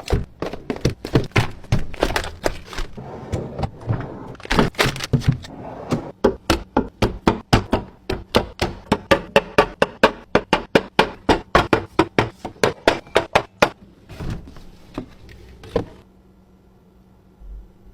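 Containers and packages being set down one after another on fridge shelves: a long run of sharp knocks, thunks and clinks. Midway the knocks quicken into a fast, even series of taps, about four or five a second, then thin out and stop near the end.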